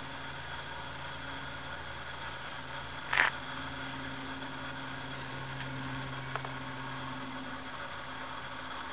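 A steady low machine hum, with one short, sharp, high-pitched sound about three seconds in and a faint click a few seconds later.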